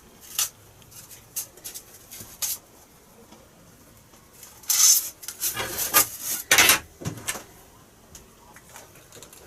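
Snap-off blade craft knife slicing through a foam wing to cut out the elevons: a few short scratchy strokes, then a louder run of rasping cuts between about five and seven seconds in.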